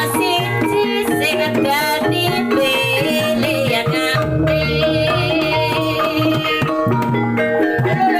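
Javanese kuda lumping / reog accompaniment music: hand-drum strokes over sustained gong-chime tones, with a wavering high melody line on top.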